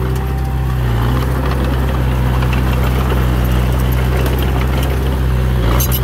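Diesel engine of a heavy earthmoving machine running at a steady speed, with a few light clicks near the end.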